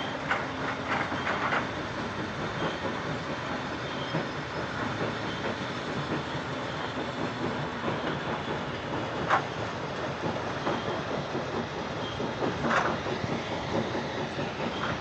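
JCB JS140 tracked excavator running, its diesel engine a steady rumble with rattling metal. Sharp metal clanks come several times in the first second and a half, then once about nine seconds in and again near the end.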